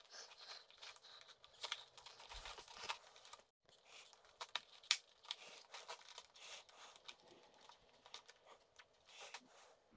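Faint, scattered clicks and short rustles of hands working small screws and parts on an RC truck's steering assembly.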